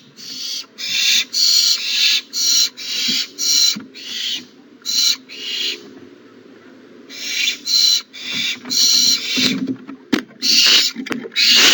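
Barn owl nestlings giving rapid rasping hiss calls, about three short hisses a second, with a pause of about a second and a half midway.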